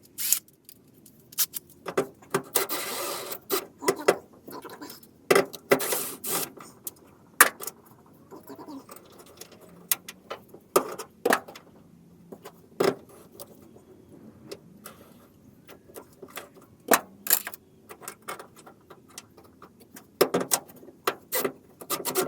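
Scattered metal clicks, knocks and scrapes: a seat belt anchor plate being worked into line between the car's inner and outer sheet metal and its bolt tightened. The loudest is a scraping stretch about three seconds in.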